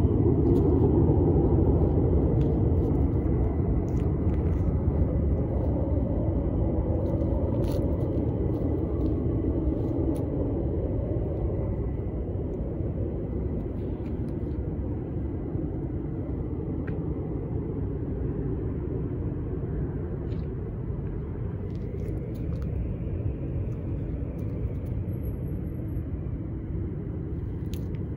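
An F-15 fighter's twin jet engines rumbling as it climbs away after takeoff, a low, steady sound that slowly fades as the jet gets farther off.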